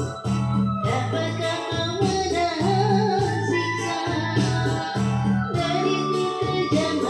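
A song: a singing voice over a steady, repeating bass line with instrumental backing.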